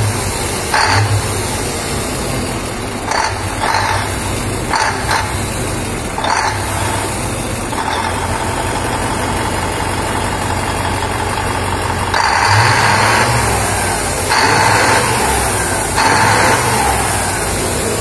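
Iveco V8 diesel engine idling, blipped in a string of short quick revs during the first six seconds, then revved up three times for about a second each in the last third.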